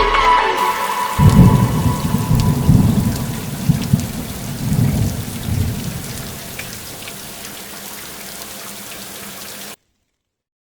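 Thunder rumbling over steady rain. The rumble rolls in about a second in and dies away over several seconds, leaving the rain hiss, which fades and cuts off near the end.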